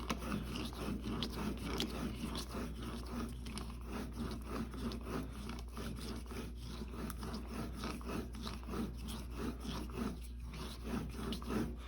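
Steel broadhead blade stroked repeatedly across cardboard loaded with polishing compound, a steady run of short dry scraping strokes. All strokes are back strokes, drawing the edge away so it is polished rather than dug in.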